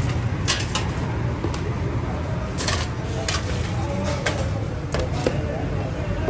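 Long metal knife clinking and scraping against a metal cooking pot and steel plates as pieces of mutton are lifted out, about eight short sharp clinks spread over a steady low background rumble.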